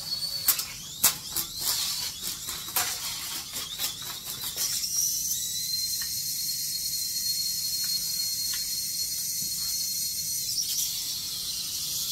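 Small coaxial toy helicopter's electric motors and twin rotors whining at high pitch. A rapid run of clicks and knocks comes over the first four seconds as it bumps about, then it runs on as a steady high whine with a hiss. The toy is flying badly.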